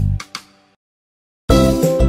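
Background music: one phrase ends and dies away, then after a short gap of silence a new tune starts abruptly about a second and a half in.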